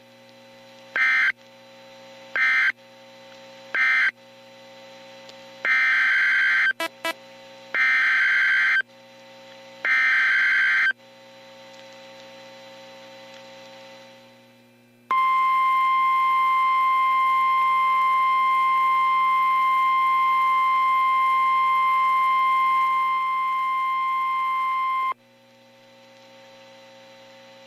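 Emergency Alert System signals from NOAA Weather Radio. First come three short raspy data bursts, the end-of-message code closing the previous alert. Then three longer SAME header bursts announce the next alert, followed by the steady warning alarm tone held for about ten seconds, all over a low steady receiver hum.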